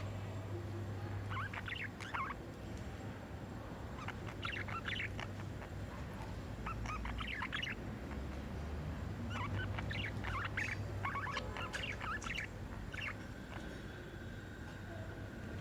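Budgerigars chirping in short bursts of rapid, high chatter, about six bursts a few seconds apart, over a steady low hum.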